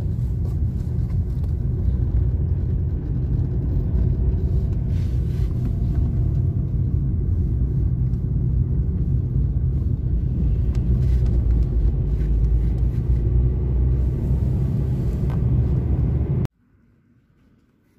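Steady road and engine rumble heard inside the cabin of a moving car, cutting off suddenly near the end.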